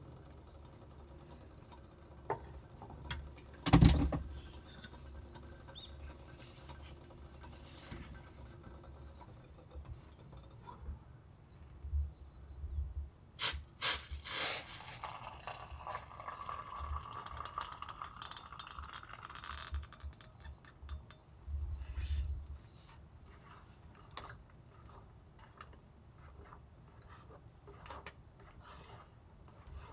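Boiling water poured from a small metal pot into a paper instant noodle cup, the pouring sound rising in pitch over about five seconds as the cup fills. A sharp knock about four seconds in, metal clatter as the pot is lifted just before the pour, and small rustles of the cup's lid afterwards.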